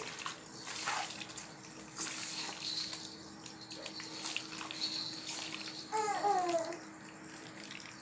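A bare hand squelching and kneading chicken pieces in a wet yogurt-and-spice marinade in a bowl, making a run of soft, irregular wet squishes. About six seconds in, a brief wavering call that falls in pitch is the loudest sound.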